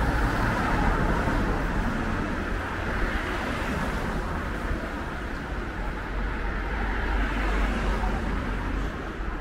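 Road traffic going by: car tyre and engine noise that slowly fades toward the end.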